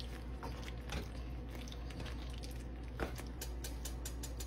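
Wooden spoon stirring chicken pieces through a thick cream sauce in a pan: soft wet squelching, with light knocks about a second in and again about three seconds in.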